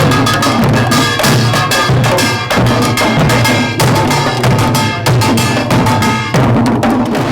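Samulnori, Korean traditional percussion: drums beat a fast, dense rhythm over the steady ringing of small gongs.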